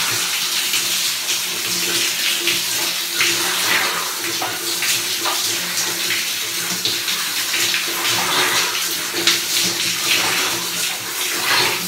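Shower spray running steadily and splashing onto a person's head and body as he rinses off soap, with a steady low hum underneath.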